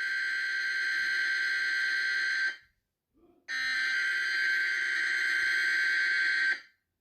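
Electronic alert tone sounding twice: two steady, buzzy blasts of about three seconds each, a second apart, each cutting off sharply, in the manner of an emergency alert or test signal.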